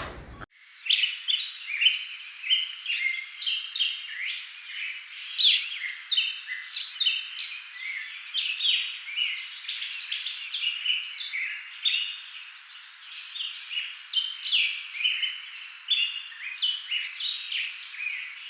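A chorus of small birds chirping and trilling, many short overlapping calls at once, starting abruptly about half a second in.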